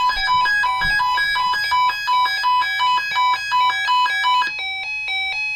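Weather alert radios sounding their electronic alert alarm for a severe thunderstorm watch: a loud, rapid chime of alternating high beeping tones, about three notes a second, the tone pattern changing about four and a half seconds in.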